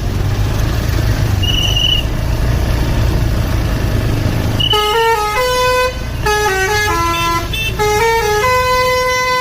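Bus telolet basuri horn playing a tune of stepped, held notes, starting about halfway through. Before that there is a steady low rumble and one short high beep.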